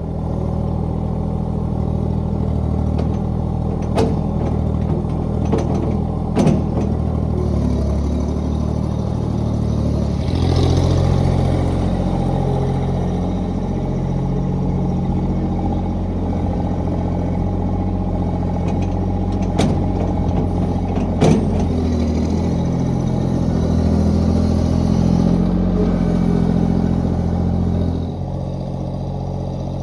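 Tractor engine running steadily, its note changing a few times as the load or throttle shifts. A few sharp clanks come over it.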